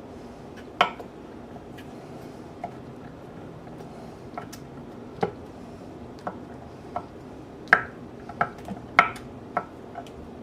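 Knife blade tapping on a cutting board while blue cheese is cut up: about a dozen sharp, irregular taps, the loudest two near the end.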